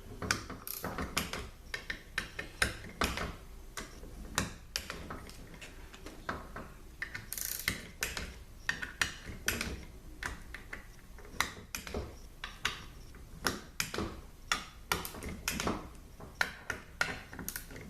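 Hand ratchet wrench clicking in short, irregular runs as bolts are turned, with small metallic clicks and knocks of tool work.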